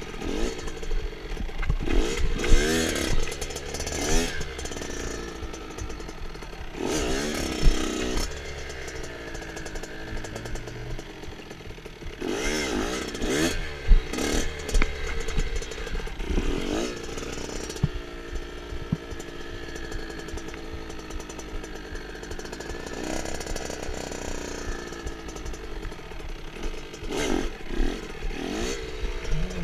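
Small dirt bike engine revving hard and dropping back, over and over, its pitch rising and falling with each burst of throttle and steadier running in between.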